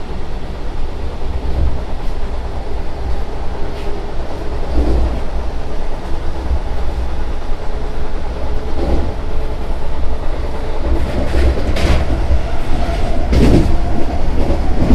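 Vande Bharat Express electric trainset running, heard from inside the driver's cab: a steady low rumble with wheels clacking over rail joints, and a run of sharper clacks near the end.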